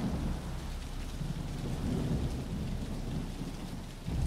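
Steady rain with low, rolling thunder rumbling underneath.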